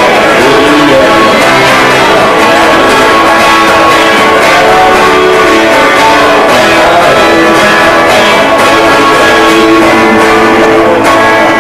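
A live band playing with strummed guitar, held chords sounding loudly throughout, thinning out about eleven seconds in as the song closes.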